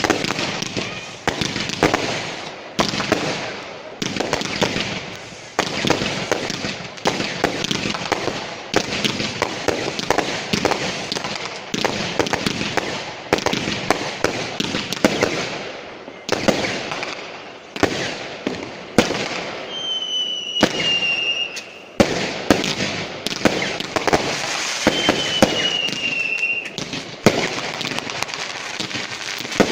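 New Year's Eve fireworks: a dense barrage of bangs and crackling from firecrackers and rockets. Two whistles falling slightly in pitch are heard about two-thirds of the way through.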